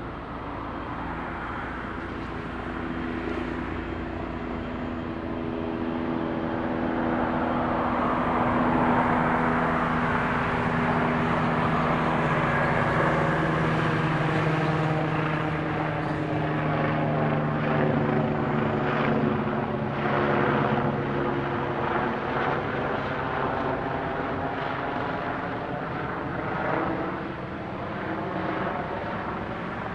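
Jet engines of a Boeing 787 running at low, taxi-level thrust: a steady rushing hum with low droning tones. It grows louder over the first third and eases off near the end.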